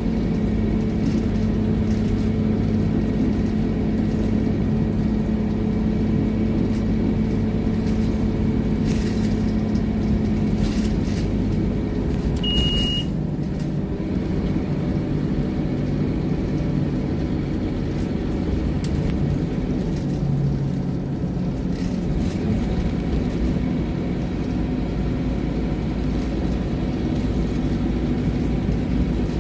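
Scania OmniLink city bus heard from inside the passenger saloon on the move: a steady engine drone and road rumble whose pitch shifts a couple of times, with a short high beep about 13 seconds in.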